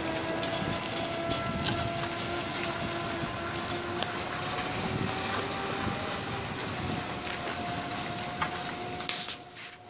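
Trackless road train, a locomotive-styled tractor pulling passenger carriages, driving slowly by. A steady whine runs over a continuous hiss, and the sound drops away near the end.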